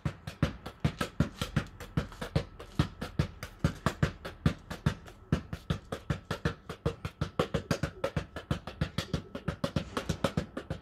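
Football bounced rapidly by hand on a tarmac path: a quick, even run of slaps and thuds, several a second.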